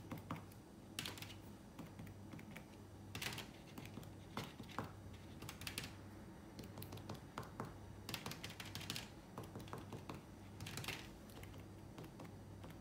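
Cotton swab dabbing acrylic paint onto paper: faint clusters of quick, light taps every second or two, over a low steady hum.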